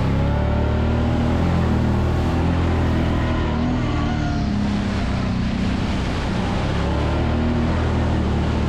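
ATV engine running steadily under way, its pitch wavering slightly.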